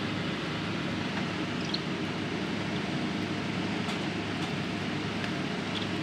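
Steady rushing background noise with a low hum, and a few faint short high chirps and clicks in the second half from budgerigars.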